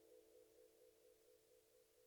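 Near silence, with a faint sustained musical tone slowly fading away: the last note of background music dying out.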